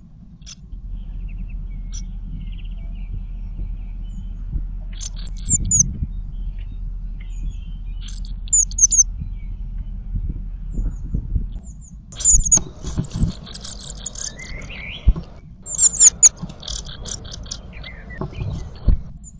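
Blue tits calling: a few short, high chirps spaced out, then a louder flurry of rapid high calls mixed with rustling in the last third, over a low steady hum.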